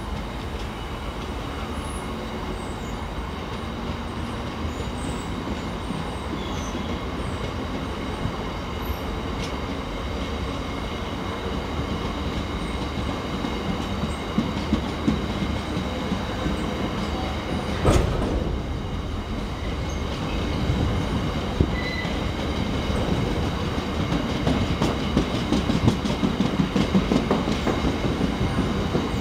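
Empty bogie coal hopper wagons of a freight train rolling past at speed, their wheels clattering over the rail joints with a faint, steady high squeal. There is a sharp clank about two-thirds of the way through, and the clatter grows louder near the end.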